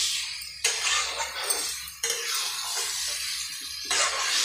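A spatula stirring and scraping chicken in a thick masala against the sides of a kadai, in several abrupt strokes, over a steady sizzle of the frying masala.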